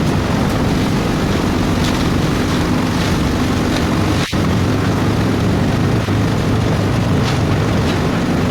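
Engine of construction machinery running steadily with a low drone, broken for an instant about four seconds in, with a few faint metallic clinks over it.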